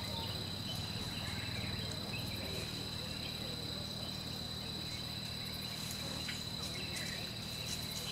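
Steady, high-pitched insect drone of rainforest insects, one unbroken tone, over a low steady hum, with a few faint scattered clicks.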